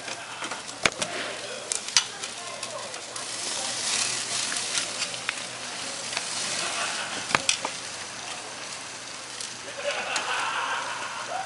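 Green leaf bok choy and vegetables sizzling over the open fire of a Big Green Egg kamado grill. Metal tongs click and scrape a few times as the greens are turned.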